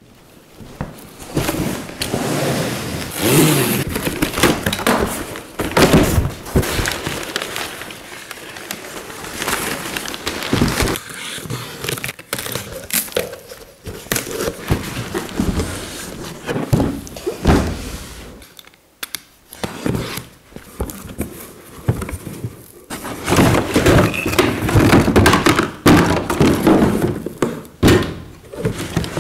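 Cardboard box being opened and unpacked by gloved hands: irregular rustling and scraping of cardboard, with repeated knocks and thuds as the boxed welder and its parts are handled and set down on the workbench.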